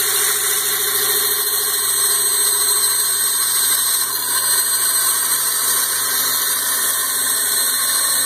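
Bandsaw running steadily, its blade cutting a round disc out of the bottom of a plastic 5-gallon bucket.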